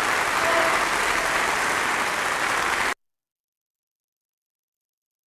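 Live concert audience applauding, which cuts off suddenly about three seconds in.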